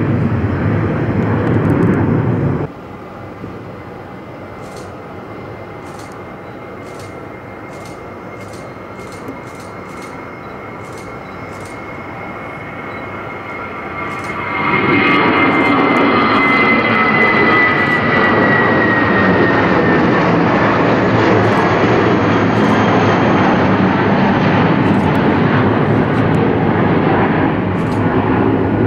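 Jet aircraft engine noise. Loud engine noise cuts off abruptly about two and a half seconds in. A high steady whine then grows into loud engine noise about halfway through, and the whine slides down in pitch as the aircraft goes by.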